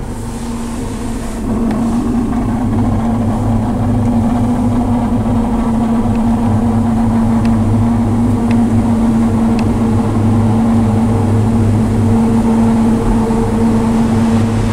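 Car wash tunnel machinery running with a steady low hum, which grows louder about a second and a half in. A few faint ticks sound over it.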